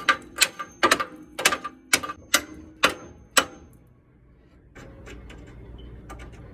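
Hammer striking metal, about eight blows a little under half a second apart, each with a brief metallic ring; the blows stop about three and a half seconds in, leaving a faint steady hum.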